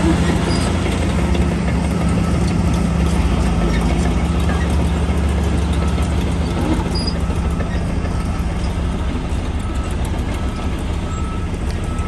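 Shantui DH17 bulldozer's diesel engine running steadily under load, a deep continuous note with mechanical noise over it, easing slightly over the last few seconds.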